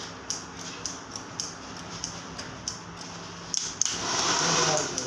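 Barber's scissors snipping short hair, one short sharp snip about every half second, over a faint steady hum. Near the end, a louder hiss lasts about a second.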